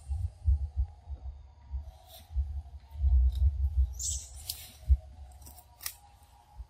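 A macaque biting and chewing a crisp cucumber, giving a scattering of sharp crunching clicks. Low rumbling thumps on the microphone run underneath.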